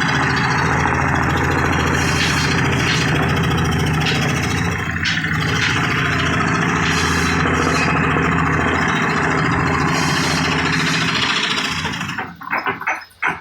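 A power tool's motor running steadily under load while it cuts wood. About twelve seconds in the motor sound drops away, and a quick run of short, evenly spaced pulses follows.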